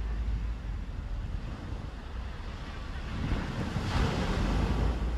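Ocean surf washing onto a beach, swelling louder about three and a half seconds in as a wave breaks, with wind buffeting the microphone as a low rumble.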